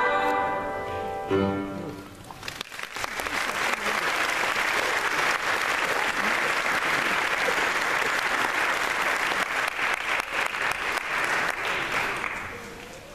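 A children's choir holds and releases the final chord of a song, ending about a second and a half in. Audience applause follows for about ten seconds and fades out near the end.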